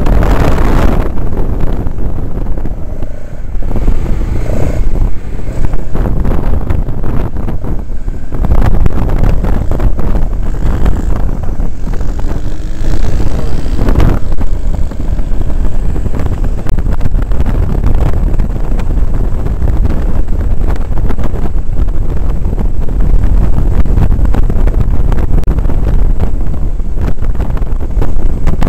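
Heavy wind buffeting on a helmet-mounted camera of a motorcycle riding at speed, with the bike's engine running underneath.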